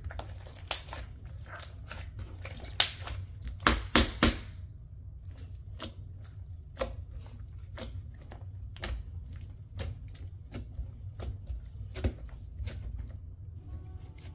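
Hands kneading and pressing a thick, yellowy-green slime mixed with small foam beads, making irregular wet clicks and pops that are louder and denser in the first few seconds. A steady low hum runs underneath.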